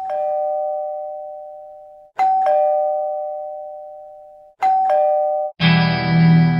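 Two-note ding-dong doorbell chime, a high note then a lower one, sounded three times about two seconds apart. The first two ring out and fade. The third is cut short when music starts near the end.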